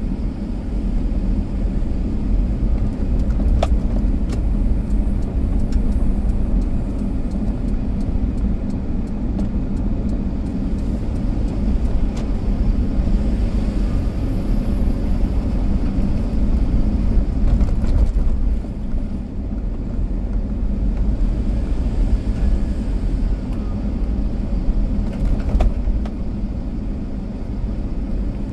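A car driving along, a steady low rumble of tyres and engine with a couple of faint clicks.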